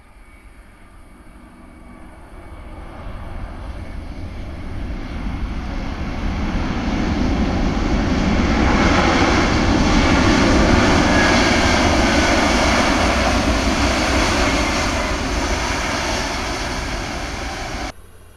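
Wizz Air Airbus A320-family airliner's jet engines at takeoff power during the takeoff roll, a loud roar that swells as the plane accelerates past and cuts off suddenly near the end.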